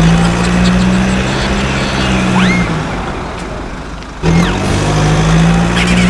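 Steady low engine drone of a vehicle sound effect over background music, with a few quick rising whistling glides; it fades about three seconds in and starts again abruptly just after four seconds.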